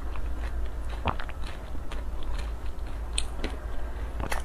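Close-miked eating sounds: wet chewing and small mouth clicks while taking spoonfuls of thin porridge, with a steady low hum underneath.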